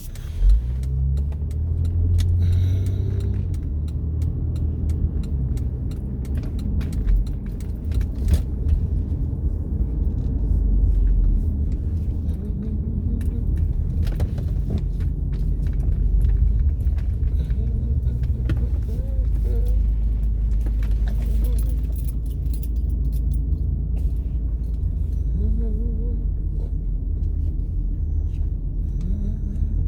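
A steady low rumble with scattered clicks and small rattles over it.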